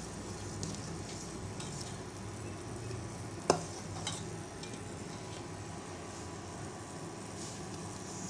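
A metal spoon stirring a thickening milk pudding mixture in a steel pot as it comes to the boil, giving a steady soft hiss with faint scrapes. There is one sharp clink of the spoon against the pot about three and a half seconds in, and a lighter one just after.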